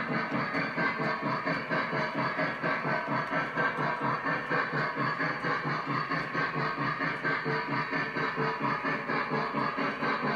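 Lionel O-gauge Milwaukee Road S3 steam locomotive running, its onboard sound system giving steady chuffing at about four chuffs a second over a continuous steam hiss.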